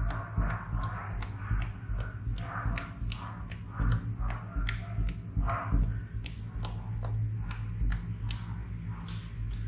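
Slime being squeezed and pressed, giving sharp clicking pops about three times a second with soft squelches between them, over a steady low hum.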